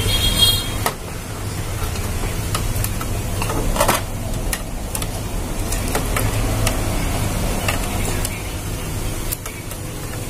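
Scattered light clicks and knocks from handling the photocopier's sheet-metal board frame, boards and cable connectors, with a brief high squeak at the start. A steady low hum sits underneath.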